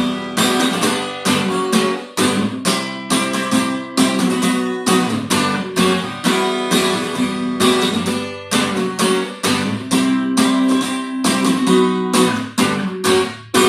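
Acoustic guitar strummed in a steady rhythm, playing chords without singing.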